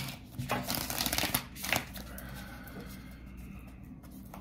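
A deck of tarot cards shuffled by hand: a quick run of papery flicks and riffles in the first couple of seconds, then quieter handling of the cards.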